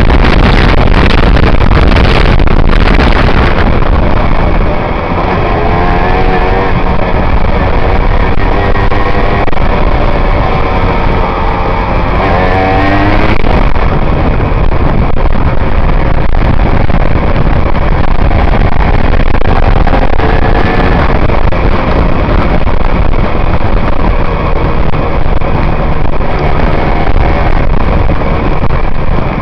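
Aprilia RS125's single-cylinder two-stroke engine revving up through the gears several times in the first half, then running steadily. Heard from a helmet-mounted camera under heavy wind noise.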